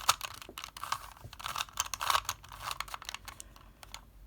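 Plastic Rubik's Cube layers being turned in quick succession during a solving algorithm: a rapid run of clicks and scrapes that thins out about three seconds in.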